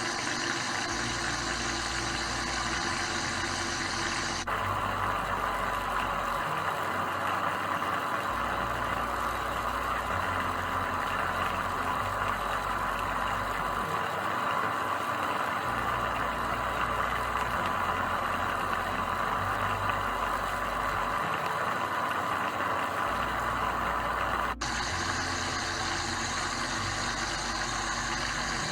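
A 540 20-turn brushed electric motor running steadily at low throttle while submerged in water for a water break-in, which seats its brushes for better contact. The steady whir changes tone abruptly twice.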